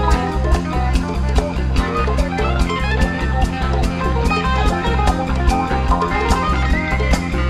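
A live rock band plays with a Telecaster-style electric guitar lead over bass guitar, keyboards and a drum kit keeping a steady beat.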